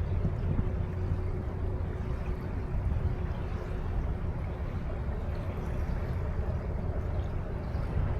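Riverside ambience: a steady low rumble of wind and river water, with a faint steady hum.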